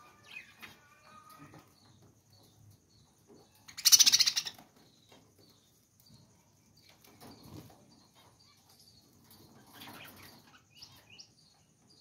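Budgerigars chirping and warbling in a cage, with short chirps scattered throughout. There is a loud, brief burst of noise about four seconds in and a weaker one near the ten-second mark.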